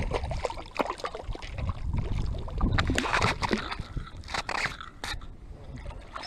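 Lake water sloshing and splashing close by, mixed with irregular scraping and knocking.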